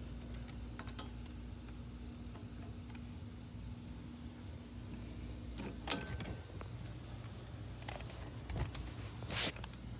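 Crickets chirping in a steady, evenly pulsing high trill, with a few brief rustling knocks about six and nine seconds in, the loudest near the end.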